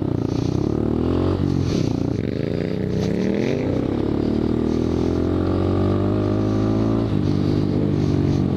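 Motorcycle engine pulling hard: its pitch climbs, drops at a gear change about a second and a half in, climbs again until about four seconds in, then holds steady at cruising speed, with another shift near the end.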